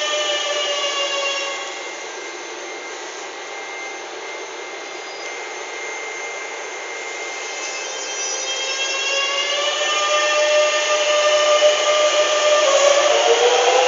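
Madrid Metro 9000-series electric train's traction motor whine, a stack of tones falling and fading as the train slows to a stop. A quieter stretch follows with a steady high hum while it stands. Then the whine returns and climbs in pitch as the train pulls away.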